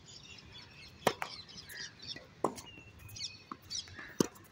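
Tennis ball being hit back and forth in a rally on a hard court: three sharp pops, the loudest about four seconds in as the near player strikes a forehand, with fainter knocks between. Birds chirp throughout.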